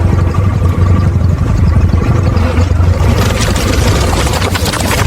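Loud, low engine-like rumble with a steady drone. About three seconds in it turns rougher, with a crackling noise.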